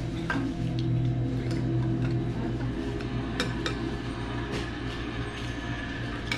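Chopsticks and spoons clinking against ceramic bowls and plates while eating: a handful of separate light clinks spread out over a steady low hum.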